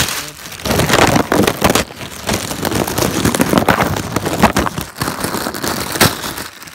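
Plastic accessory bag from a TV box crinkling and crackling loudly as it is handled and pulled open, with sharper crackles at several points.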